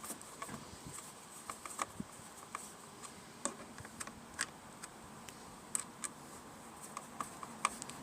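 Faint, irregular light clicks and taps, a few each second, of small parts and tools being handled.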